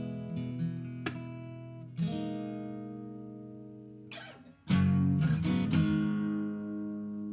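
Acoustic guitar strumming chords in a slow instrumental outro, each chord left to ring and fade, with a burst of strong strums about five seconds in that rings out.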